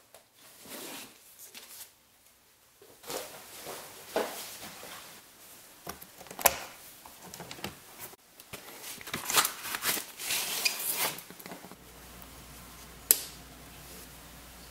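Handling noises as a suitcase record player is unpacked and opened: rustling, scraping and several sharp clicks from its metal latches and lid, busiest about two thirds of the way in. About 12 seconds in, a faint steady low hum starts once the turntable is powered on.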